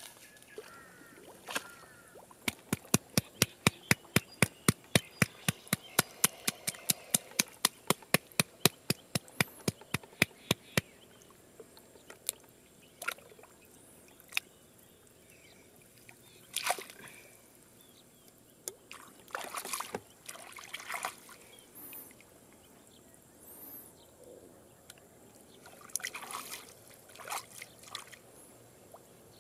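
A rapid, even series of sharp clicks, about four or five a second, runs for about eight seconds and is the loudest sound. Later come scattered small splashes and sloshes as hands push a large soft-shelled turtle through shallow, grassy water.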